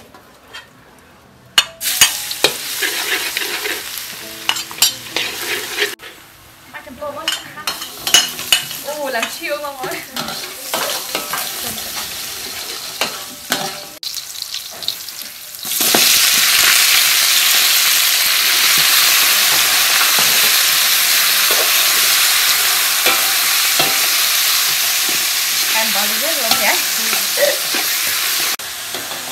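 Chopped garlic and spring onion frying in hot oil in a metal wok, sizzling while a metal spatula stirs and clicks against the pan. A little past halfway a much louder, steady sizzle starts, which drops a little near the end.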